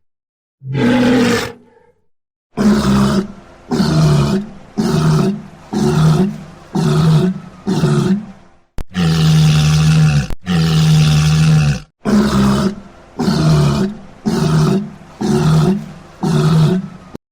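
Walrus bellowing: a string of short, deep, pitched calls about one a second. Two longer, held bellows come midway.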